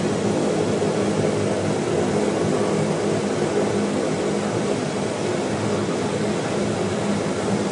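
Dash 8's twin turboprop engines and propellers running with a steady drone and a low hum, heard inside the cockpit.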